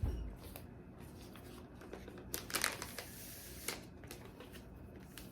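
Comic books being handled and set down: a soft thump, then a short spell of rustling and crinkling with a few light clicks and taps.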